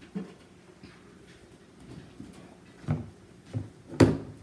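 Plastic glue bottles set down on a wooden tabletop: four short knocks, the last the loudest.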